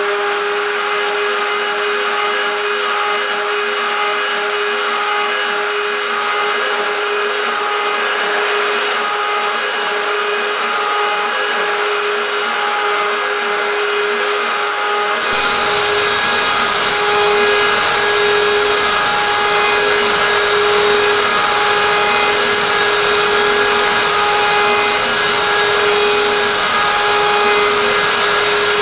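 WorkBee CNC router's spindle running with a steady whine while a small end mill cuts into 6061 aluminium plate. About halfway through, the sound shifts, with more low rumble and a little louder.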